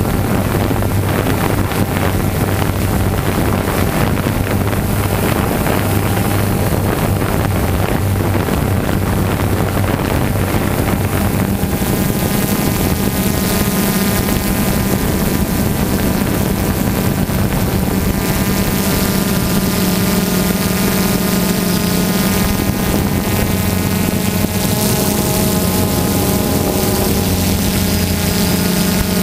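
Multirotor drone's electric motors and propellers humming steadily, recorded by its onboard camera. The pitch of the hum shifts about twelve seconds in as the drone changes its flight.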